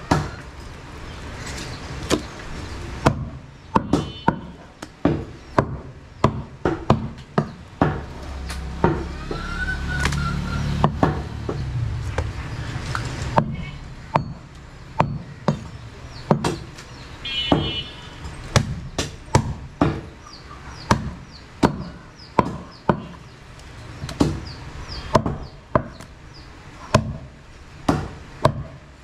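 A butcher's cleaver chopping goat meat and ribs on a wooden chopping block, with sharp blows landing about one to two a second. A low rumble runs underneath for a few seconds midway.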